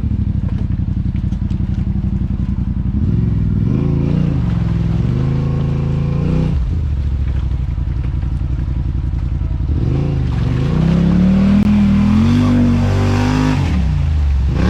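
Side-by-side UTV engine running at a low idle, revving up and back down twice; the second rev, near the end, goes higher and is held longer.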